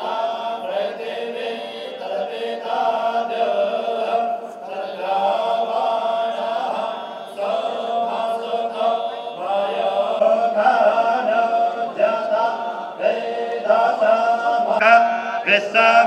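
Vedic Sanskrit mantra chanted in unison by a group of men into a microphone, a continuous sung recitation with held notes.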